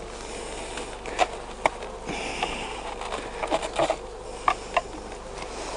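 Honey bees buzzing steadily around a Langstroth hive. Several sharp clicks and knocks come through it as the hive's box clips are undone.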